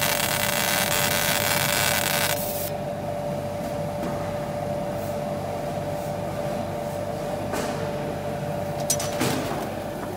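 Galvo CO2 laser marking machine with a 150 W Coherent RF tube cutting thin card: a dense high hiss that stops about two seconds in as the cut finishes, over a steady machine hum. A couple of short clicks and knocks near the end as the sheet is handled.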